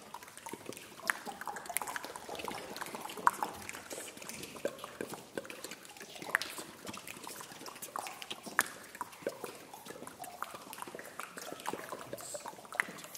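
A chorus making scattered mouth clicks, pops and short squeaks that overlap at random with no steady pitch or beat, part of a text-score vocal piece evoking sounds of the ocean floor.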